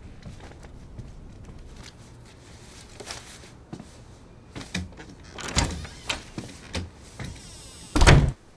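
A house's front door being worked: a run of clicks and knocks from the knob and lock, then a heavy thud near the end as the door shuts.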